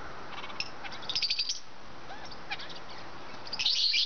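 Young lovebirds chirping in shrill, rapid series: a run of chirps about a second in, a few soft single notes, and a louder burst of chirps near the end.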